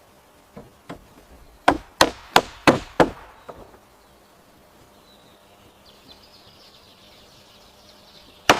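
A tool striking wood: two light taps, then five hard blows about three a second, a weaker one, and after a pause one more hard blow near the end.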